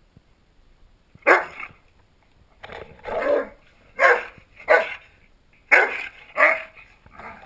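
Dogs barking in play while roughhousing, a Shetland sheepdog and a Rhodesian ridgeback: a string of about seven short, loud barks starting about a second in.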